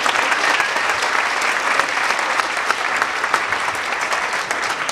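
Audience applauding: dense, steady clapping that begins to thin near the end.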